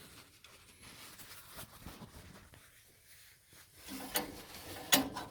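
Faint rubbing and handling noises, with a few sharp clicks or knocks from about four seconds in, the sharpest near the end.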